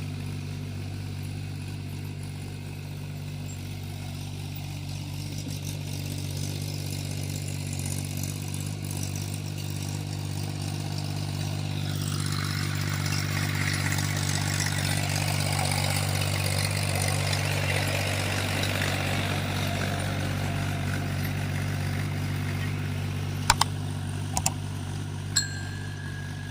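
Tractor's diesel engine running steadily at a constant speed, with a rushing noise joining about halfway through. Near the end come a few sharp clicks and one short ding.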